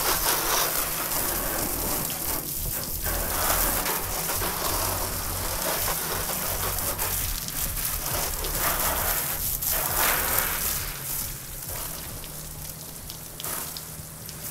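Pressure washer spraying water against a surface: a dense hiss that swells and eases as the spray moves, with a steady low hum underneath, and a little quieter near the end.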